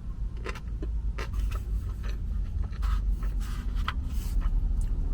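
Close-miked eating sounds: chewing with an irregular run of small clicks and short, soft scrapes and crackles.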